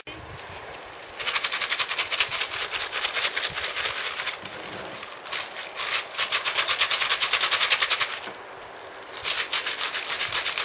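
Rapid rattling series of sharp cracks like automatic gunfire or a string of firecrackers, in three bursts separated by short pauses, made as noise-desensitization exposure for young puppies.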